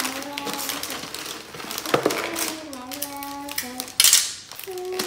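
Christmas wrapping paper rustling and crinkling as presents are wrapped by hand, with a loud rip about four seconds in. Over it a voice hums a tune of a few held notes.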